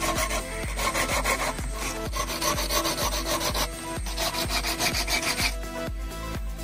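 Hand-sanding the stem of a coconut-shell wine glass: an abrasive sheet wrapped round a small tube rasps back and forth over the shell in several strokes, with short pauses between them.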